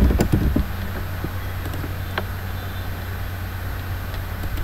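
Steady low hum with faint hiss, with a few computer keyboard keystrokes in the first half-second and a single mouse click about two seconds in.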